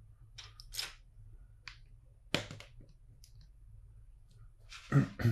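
LEGO bricks being handled and pressed together: scattered sharp plastic clicks, with a louder knock near the end.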